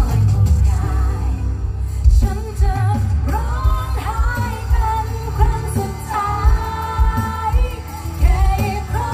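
A woman sings a Thai pop song live into a microphone over a loud amplified band with heavy bass and drums. Some of her notes are held long with vibrato.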